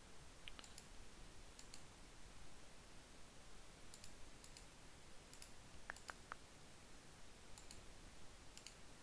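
Faint computer mouse clicks, scattered through the quiet, several of them in quick pairs like double-clicks, as folders are opened in a file tree.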